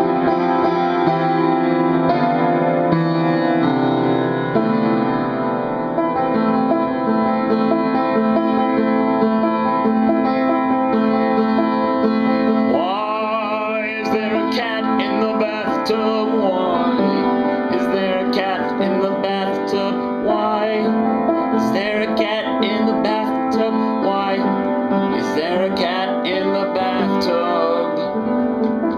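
Piano playing an upbeat tune of chords and melody; from about halfway, sliding, bending tones join in over the chords.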